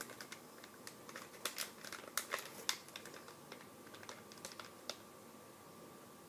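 Faint scattered clicks and taps of a toy figure's plastic and cardboard packaging being handled, frequent over the first three seconds and then only now and then. A faint steady tone comes in a little after two seconds.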